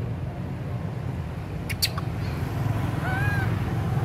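A short, high squeak from an infant long-tailed macaque about three seconds in: one call that rises and falls in pitch. It sits over a steady low rumble, with two sharp clicks a little before it.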